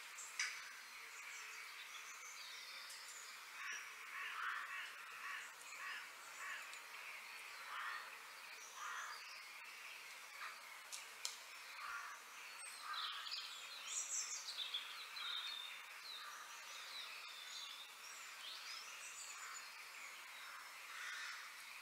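Outdoor ambience with birds calling: many short, scattered calls and chirps, some harsher, crow-like calls among higher chirps, busiest a little past the middle.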